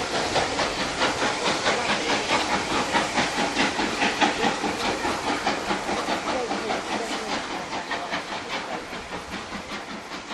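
Steam locomotive working away, its exhaust beats in a quick steady rhythm with a hiss of steam, fading steadily as it draws into the distance.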